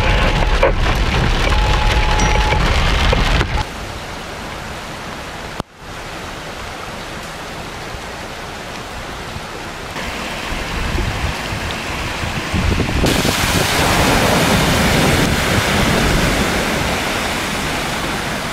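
Heavy rain and running floodwater, a steady hiss without pitch. For the first few seconds it is heard from inside a moving car, with a low rumble under the rain; then the sound changes abruptly to rain and water running through a flooded street, growing louder in the second half.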